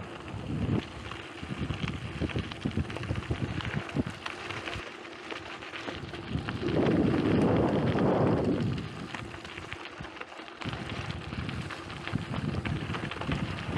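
Mountain bike rolling over a loose gravel track, its tyres crunching and the bike rattling with many small ticks from stones. Wind buffets the microphone throughout, most heavily in a gust about seven to nine seconds in.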